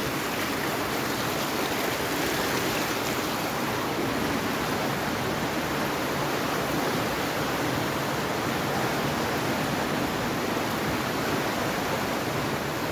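Steady rushing of a muddy flash flood, a fast torrent of water flowing past.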